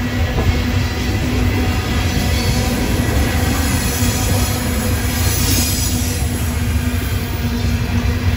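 Loaded coal hopper cars of a freight train rolling past at close range: a loud, steady rumble of steel wheels on the rails with a constant hum, and a high wheel squeal that swells about five seconds in.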